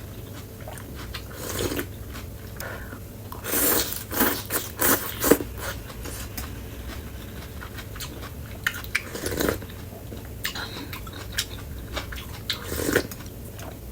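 Close-up eating sounds from a bowl of bún bò beef noodle soup: irregular slurps and chewing, with utensils now and then clinking against the bowl. The busiest stretch is about four to five seconds in.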